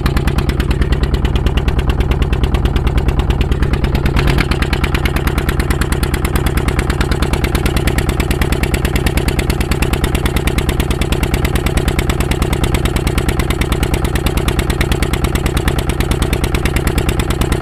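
A fishing boat's engine running steadily under way, a fast, even beat that holds the same speed throughout.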